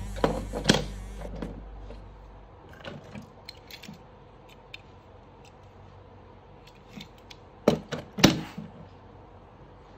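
Die-cast toy cars clinking and clacking against each other and the tray as they are handled: a few clacks in the first second, light ticks around three to four seconds in, and a louder clatter of several knocks near the end as a car is set back into the row.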